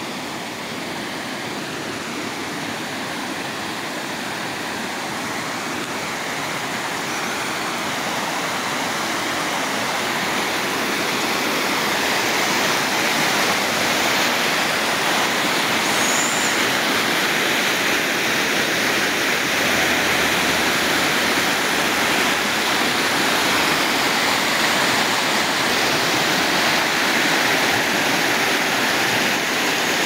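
Rapids cascading down sloping rock slabs: a steady rush of white water that grows louder over the first ten seconds or so and then holds.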